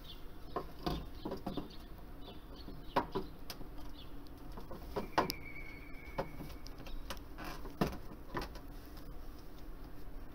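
Scattered light clicks and knocks of hands working on battery leads and fittings inside a fire alarm receiver panel, with one brief high steady tone about five seconds in.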